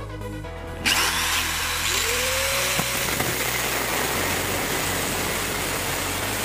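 Power tools start up about a second in, with a rising motor whine, then a steady loud grinding noise as a stainless steel nail, turned in a cordless drill, is ground against a spinning angle-grinder cutting disc. Background music runs underneath.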